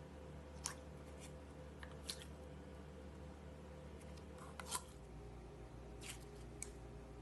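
Slime being handled by hand: scattered small, sharp sticky clicks and pops, six or so spread irregularly, over a faint steady hum.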